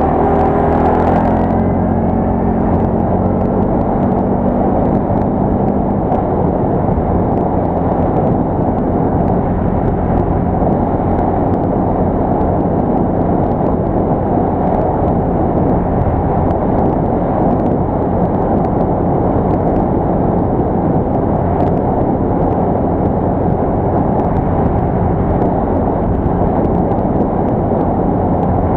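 Quad bike (ATV) engine running while riding, a loud, constant drone with no break. Its pitch is clear for the first few seconds, then it blends into a dense, even rumble.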